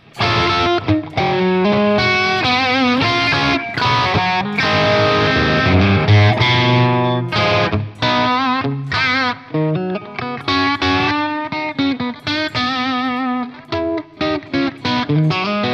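Telecaster-style electric guitar played through an Origin Effects Revival Drive overdrive pedal with its mid boost switched on. It plays a run of single-note lead phrases with vibrato on the held notes, breaking into shorter, choppier notes near the end.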